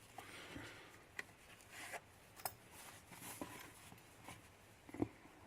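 Faint handling sounds of lock picks being sorted from a pick kit: scattered light clicks and rustling, with a sharper tick near the end.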